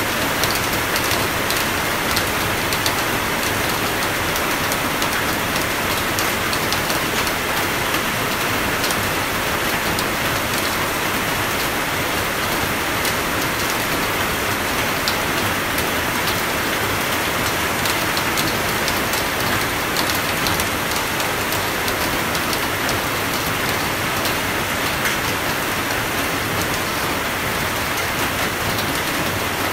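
Steady rain falling: a dense, even hiss with many small crisp ticks of individual drops, unchanging throughout.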